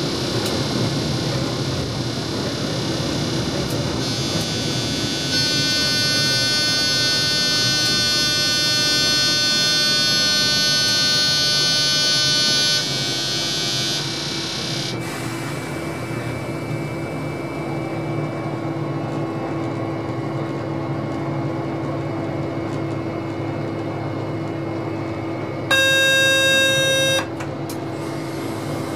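Train cab interior with the steady running noise of a train moving slowly. A long, steady electronic warning tone sounds for about seven seconds, and a short, loud tone sounds near the end.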